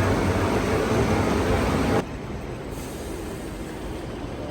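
Steady rumble and rush of a train in motion. About two seconds in it drops abruptly to a much quieter, duller hum.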